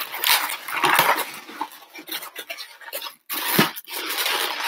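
Latex modelling balloon squeaking and rubbing against itself in the hands as a small pink piece is twisted into shape, in irregular scratchy bursts with short pauses.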